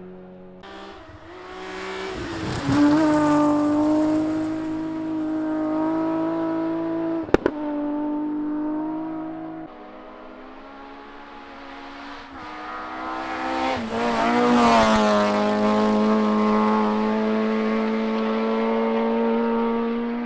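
Rally cars passing at full throttle on a gravel special stage, one after the other: each engine is held at high revs, loudest as it goes by, and drops in pitch as it passes. A single sharp crack sounds between the two passes.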